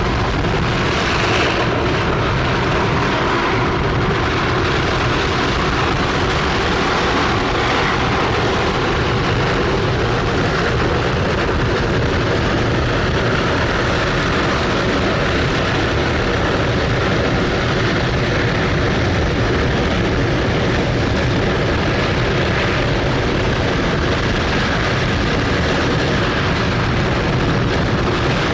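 Rocket engine firing on a test stand during a long-duration hot-fire test: a loud, steady, unchanging noise with plenty of low rumble in it.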